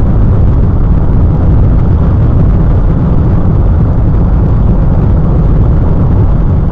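Steady low rumble of engine and road noise inside the cabin of a moving 2003 Honda Element.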